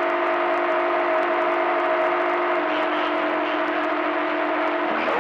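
CB radio receiver carrying a steady low tone over static hiss: a station keyed up on the channel without speaking, an open carrier. The tone cuts off about five seconds in.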